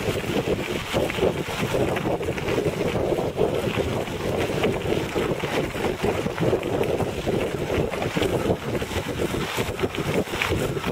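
Tyres of a recumbent pedal quad rolling over a rough, gravelly road: a steady rumble with many small rattles and clicks, mixed with wind buffeting the bike-mounted camera's microphone.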